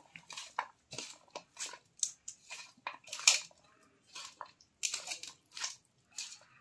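A hand mixing and squeezing boiled goat intestine pieces with chopped onion, tomato and spice powders in a steel plate: an irregular run of short soft squishes, several each second, with a pause of about a second a little past halfway.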